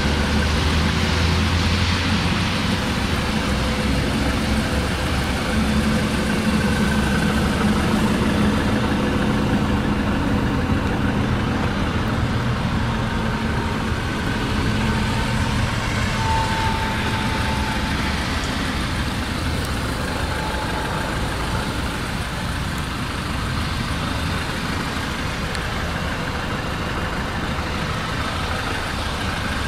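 2015 Ford Mondeo's naturally aspirated 2.0-litre 16-valve inline-four idling steadily.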